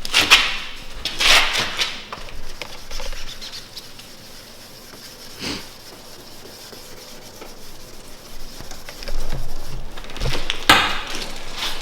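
Hand sanding of a car's painted body panel: a few short rubbing strokes of sandpaper on paint in the first couple of seconds and again near the end, with a quieter stretch and a single tick in between.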